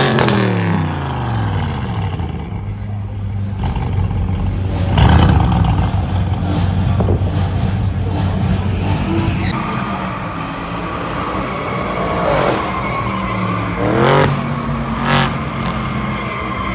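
Straight-piped Audi RS6 Avant C7's twin-turbo V8 revved while stationary: revs falling back at the start, a loud blip about five seconds in, and two more quick rev flares near the end, with sharp exhaust cracks between them.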